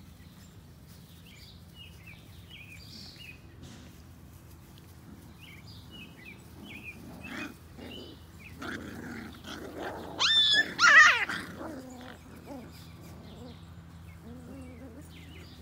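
Schnoodle puppies play-fighting, with small growls and yips; about ten seconds in one puppy lets out a loud squealing yelp for a second or two.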